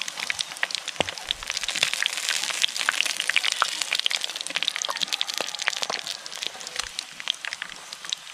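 Frog pieces deep-frying in a wok of hot, foaming oil: a steady sizzle of dense, fine crackles, thinning a little near the end.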